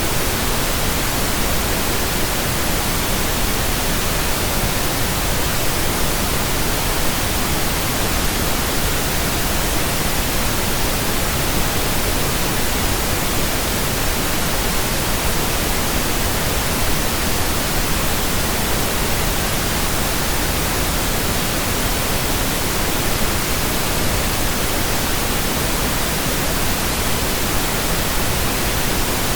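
Steady synthetic pink noise: soft static, like a radio station not in tune, unchanging throughout.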